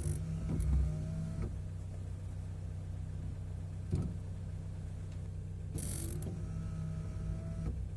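Peugeot 308 rear wiper sweeping across the glass with a drawn-out squeak, twice: at the start and again about six seconds in. The squeak does not come from the wiper blade rubber; its cause is not yet known. A steady low hum runs underneath.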